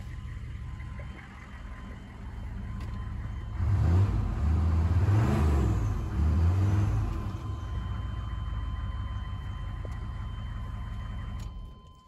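1996 GMC K3500's 6.5-litre V8 diesel idling, revved up twice from about four to seven seconds in, settling back to a steady idle and then shut off near the end. The owner says this engine has a stumble, which he puts down to debris from the fuel tank reaching the injection pump.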